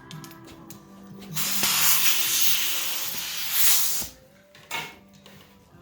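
Compressed air hissing into a dirt bike tire for about two and a half seconds as it is inflated to seat the bead, followed by a short second burst of air.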